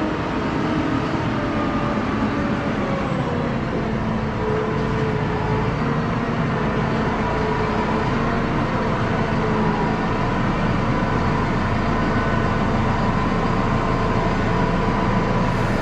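Massey Ferguson tractor's diesel engine running steadily, its pitch drifting slightly up and down.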